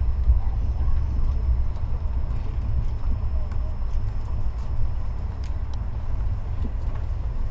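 Steady low rumble of a moving express train, heard inside the passenger coach, with faint light ticks and crinkles from foil food trays being opened.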